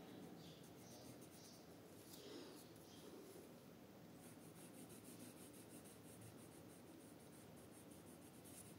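Faint scratching of a red coloured pencil shading on paper in quick, repeated strokes.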